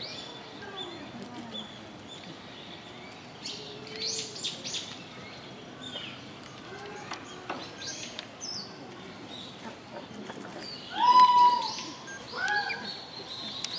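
Small birds chirping with short high calls scattered throughout. About eleven seconds in comes the loudest sound, a high-pitched call or voice held for about half a second and then dropping, followed by two shorter calls.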